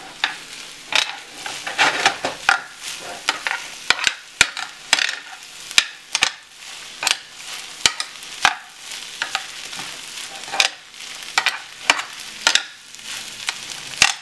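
Chicken fried rice being stirred and scraped around a hot square skillet: irregular scraping strokes with a few sharp taps on the pan, over a steady frying sizzle.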